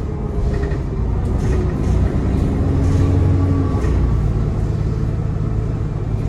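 ADL Enviro 400 double-decker bus running under way: a low engine rumble with a turbo whine that comes and goes and shifts in pitch, swelling slightly a couple of seconds in.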